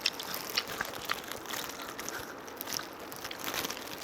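Close-miked crunching and chewing of crispy fried chicken: a run of irregular, sharp crackles as the crust is bitten and chewed.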